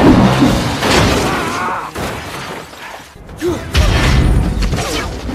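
Action-film battle sound mix: a loud crash at the start, then more impacts after a brief lull, with orchestral score underneath.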